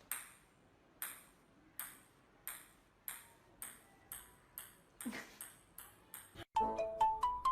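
A run of short, high pings that speed up steadily. About six and a half seconds in, a bright, bell-like musical melody starts and is louder than the pings.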